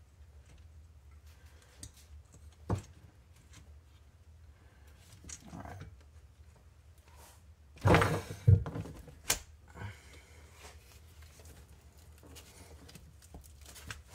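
Hard plastic RC truck chassis and steering parts being handled and fitted together by hand: a sharp click about three seconds in, a brief scrape, then a cluster of knocks and clatter about eight seconds in, over a faint low hum.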